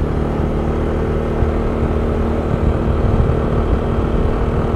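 A vehicle's engine and road noise at a steady cruise: an even low hum and rumble that holds level throughout.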